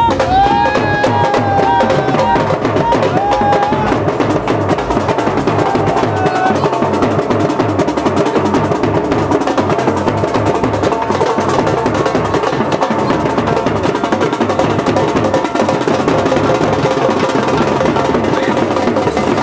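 Music with fast, dense drumming. A melody with sliding pitch plays over the drums for the first few seconds, then the drumming goes on mostly alone.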